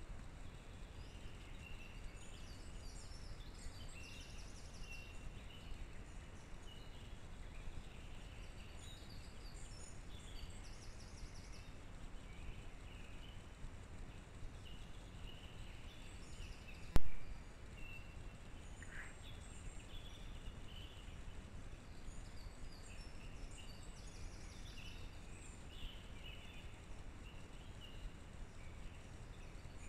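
Small birds chirping and singing on and off over a steady low background rumble, with one sharp, loud click a little past the middle.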